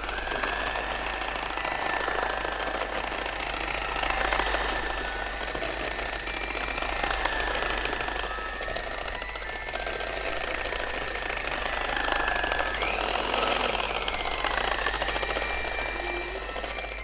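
Electric hand mixer running, its twin wire beaters whisking cookie batter in a bowl: a steady motor whine over the whirr and rattle of the beaters, the pitch wavering slightly as the load changes.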